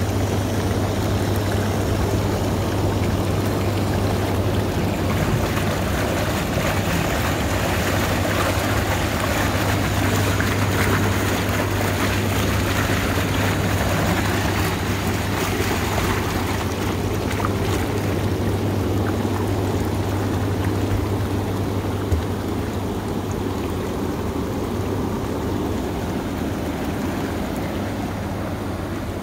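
Hot tub jets running: a steady low pump hum under continuous churning, rushing water, with a single brief click about three-quarters of the way through.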